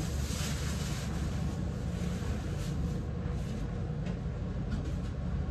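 A steady low rumble throughout, with soft rustling of fabric as a garment is handled and unfolded.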